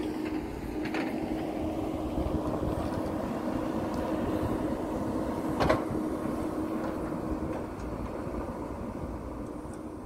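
JCB backhoe loader's diesel engine running steadily as the backhoe digs, with a held low hum and two sharp knocks, about a second in and near the middle.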